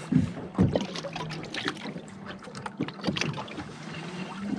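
Sounds aboard a small offshore fishing boat: a steady low hum with scattered knocks and clicks, and a couple of louder thumps in the first second.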